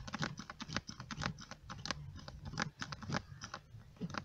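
Small hand pump on a bottle of gear oil being worked quickly, giving a run of irregular clicks several times a second, as it pushes oil up a hose into an outboard's lower gearcase. The pump is not pumping properly.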